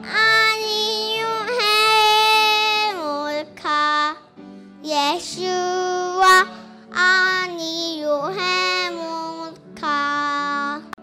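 A young girl singing a worship song into a microphone over instrumental accompaniment, in long held notes with short breaks between phrases.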